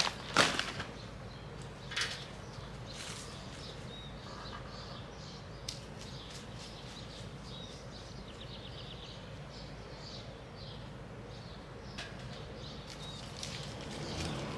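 Birds chirping faintly in short, scattered calls over a quiet background, with a few light knocks in the first few seconds.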